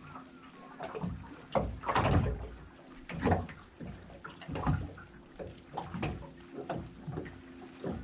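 Water slapping and knocking against the hull of a small aluminium boat in irregular knocks and splashes, the loudest about two seconds in.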